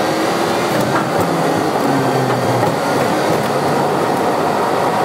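Converted bus driving up a grated steel loading ramp onto a ferry's car deck: a loud, steady rumble of engine and tyres on metal.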